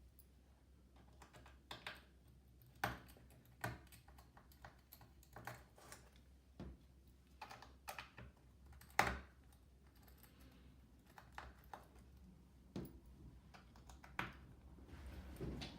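Irregular small sharp clicks and taps of a precision Phillips screwdriver working out the tiny bottom-case screws of a MacBook Pro, with the screws being handled and set down; one louder click about nine seconds in.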